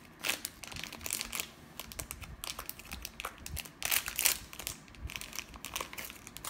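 A shiny foil blind-bag wrapper crinkling and crackling as it is handled and pulled open by hand, in an irregular run of crackles.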